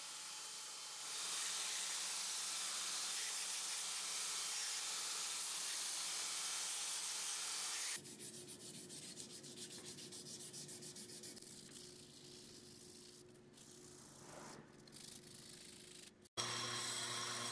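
Damascus steel lure being sanded. First comes a steady hiss of abrasive on the metal for several seconds, then fainter, repeated rubbing strokes of sandpaper worked by hand over the lure on a flat block. About a second before the end, the steady hum of a bench buffer's motor starts.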